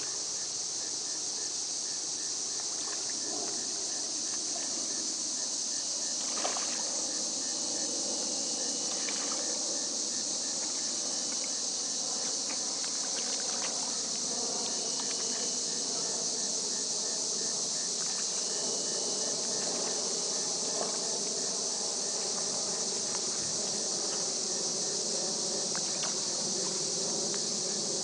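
Steady, high-pitched insect chorus, with a second insect's regular pulsing chirp lower down and a few faint clicks.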